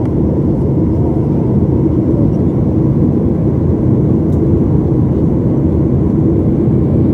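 Jet airliner's engines and airflow heard from inside the passenger cabin during the climb after takeoff: a steady, deep roar that does not change.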